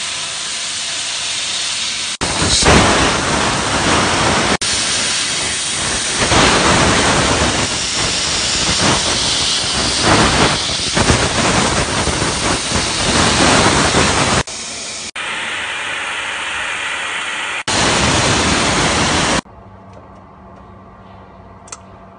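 A 280 W laser cutter cutting 23 mm plywood, with a loud steady hiss of air at the cutting head. The level jumps abruptly several times, and about three-quarters through it drops to a much quieter steady hum.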